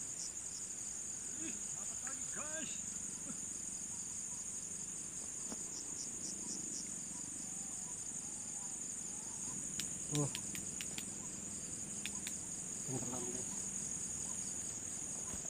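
Night insect chorus: a steady, finely pulsing high trill, with a few faint short calls and clicks over it.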